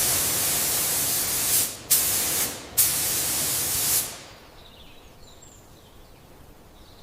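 Loud hissing spray in three bursts, the first nearly two seconds long and the last two about a second each, then dropping to a faint hiss.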